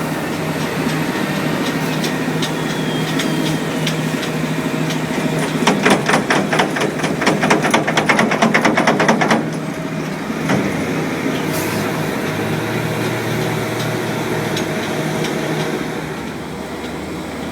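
Heavy diesel construction machinery running steadily. For about three and a half seconds in the middle, a fast series of metallic clattering knocks rises over the drone.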